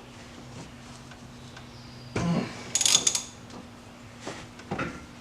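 Hand tools on a steering wheel nut: a half-inch-drive socket and extension being worked on the 21 mm nut. A knock and a short metallic clatter come about two to three seconds in, and a couple of lighter knocks follow near the end.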